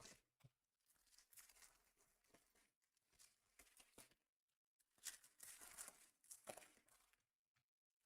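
Faint tearing and crinkling of plastic wrapping as trading card packs are opened, in irregular bursts with a short pause about halfway through.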